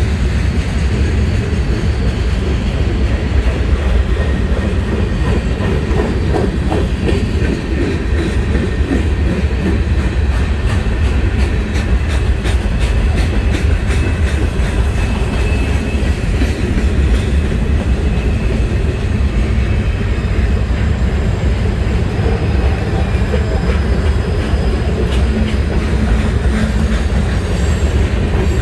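A CSX manifest freight train's cars rolling past: a loud, steady rumble of steel wheels on rail, with clicking as the wheels cross rail joints.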